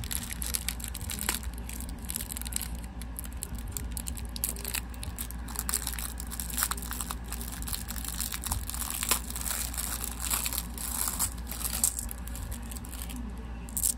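Packaging around small stones crinkling and crackling as it is handled and opened, in irregular bursts with scattered clicks, over a steady low hum.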